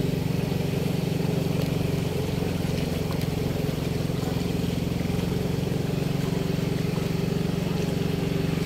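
Motorcycle engine running steadily at walking pace while the bike is ridden through floodwater.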